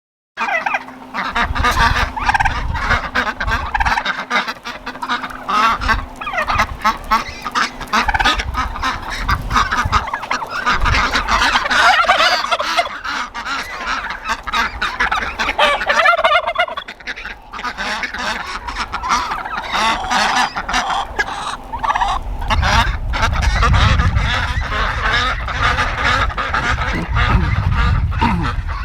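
A flock of farm poultry calling all at once, many overlapping calls with no pause, with a low rumble joining in about three-quarters of the way through.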